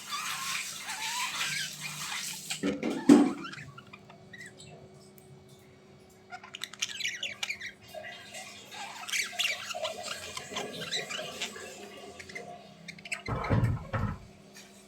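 A bird chirping and squawking in bouts, with a sharp knock about three seconds in and a low thud near the end.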